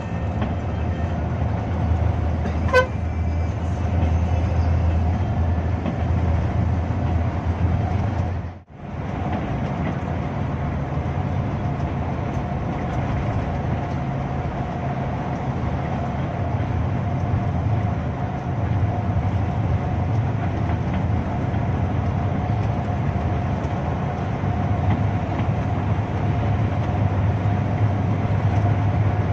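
Hino RK2HM bus heard from inside the cabin, running at highway speed: a steady low engine drone with road noise and a constant mid-pitched whine. A short tone sounds about three seconds in, and the sound cuts out for a moment near nine seconds.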